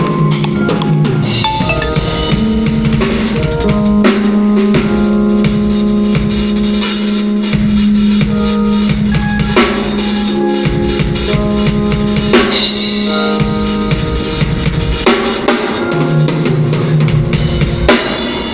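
A band playing during a sound check: a drum kit with bass drum and snare keeps a beat over held chords and a sustained bass line that change every few seconds.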